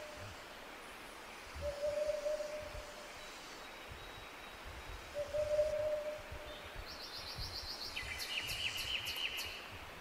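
Forest birdsong: a low, steady hooting call of about a second, repeated three times a few seconds apart, then a small bird's rapid high trill of quick repeated notes near the end.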